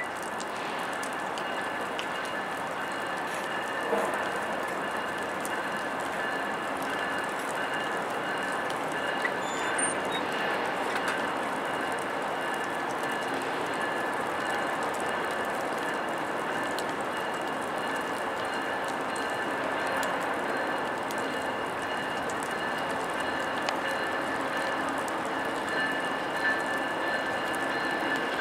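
VIA Rail GE P42DC Genesis diesel locomotive pulling a passenger train slowly out of the station, its running noise steady with a constant high-pitched whine on top. A few sharp clicks come from the wheels over the trackwork.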